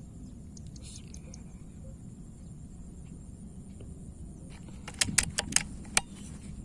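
A quick run of about five sharp metallic clicks within a second, over a steady low outdoor rumble: an air rifle being handled, its action worked around a shot.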